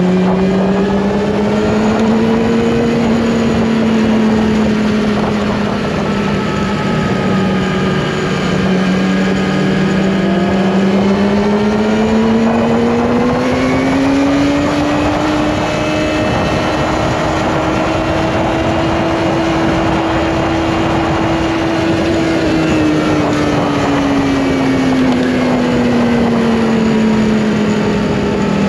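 Yamaha R1's inline-four engine under way at a steady cruise, its pitch climbing gradually, holding, then easing down near the end, over a steady rush of wind and road noise.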